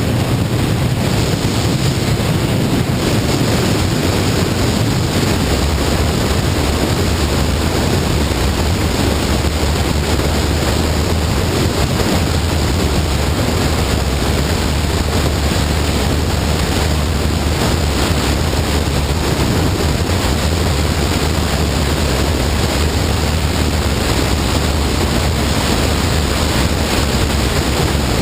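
Heavy, steady wind rush on the microphone of a moving motorcycle, with the low, even drone of the Honda CBR954RR's engine underneath.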